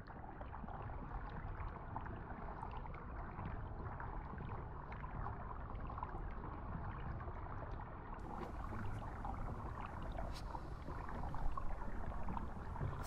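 Steady rushing noise with scattered faint clicks and crackles, growing a little louder in the last few seconds.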